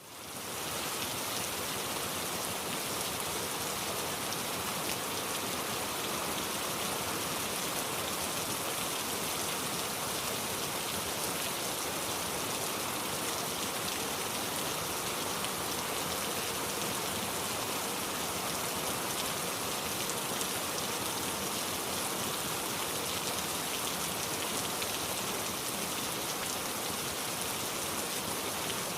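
Steady, even rain, fading in over the first second and then holding at a constant level.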